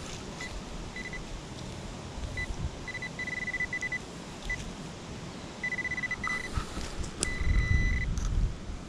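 Metal detector giving short, irregular beeps of one high tone as it passes over a metal target in the dug soil. Rustling and scraping of digging in soil and leaves, loudest near the end.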